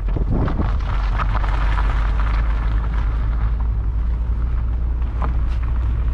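Steady low rumble of a running vehicle, with a few light knocks and rattles over it.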